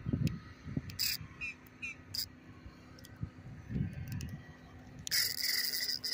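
Spinning reel's drag buzzing as a hooked fish pulls out line: a few short bursts, then one steady buzz of about a second near the end, over low rumbling knocks of handling.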